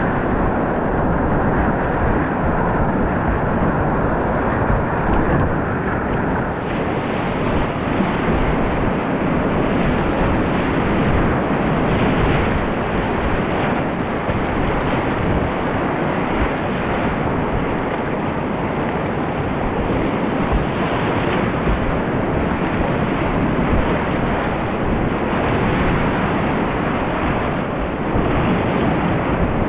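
Whitewater of a steep alpine river rushing loudly, heard close up from a kayak in the rapids. The rush turns brighter and more hissing about seven seconds in.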